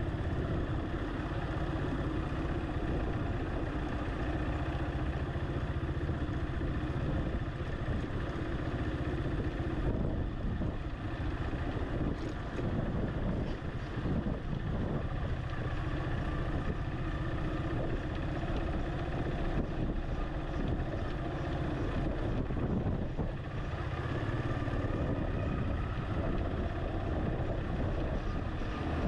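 A vehicle's engine running steadily while driving slowly along a street, with continuous road noise.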